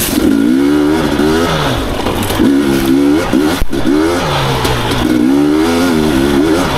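Husqvarna TE250i two-stroke enduro engine revving up and down in a series of quick throttle bursts, its pitch rising and dropping about four times.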